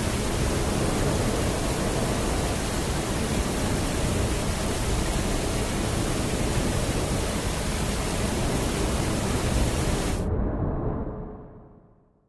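A loud, steady rushing noise with no pitch or rhythm. About ten seconds in its high end drops away abruptly, and it fades out over the last two seconds.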